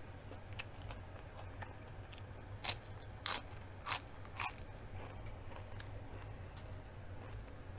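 Crisp food being bitten and chewed close to the microphone: four loud crunches about half a second apart around the middle, with fainter chewing clicks before and after.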